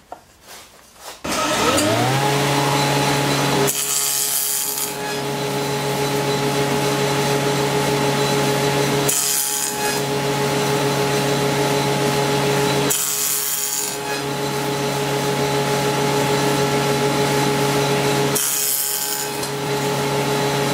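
Table saw fitted with a dado blade set starting up, its motor whine rising to a steady pitch in the first couple of seconds. It then runs while four passes are cut into a wooden rail to make a half-lap notch, each pass a hissing burst of about a second.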